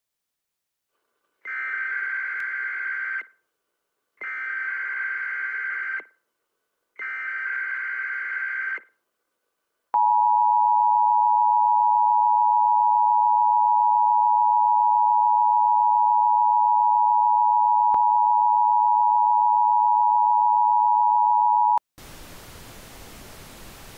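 Computer-generated Emergency Alert System signals: three short bursts of SAME header data tones, then the steady two-tone EAS attention signal held for about twelve seconds. It cuts off suddenly into a hiss of static. Together they announce an emergency alert, here a severe thunderstorm warning.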